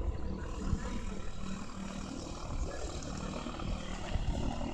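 Distant airship propeller engines droning steadily, under low rumbling wind buffeting on the microphone.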